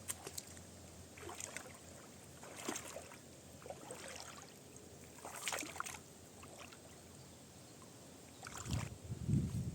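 Water splashing in short irregular strokes, one every one to two seconds, with a low rumble near the end.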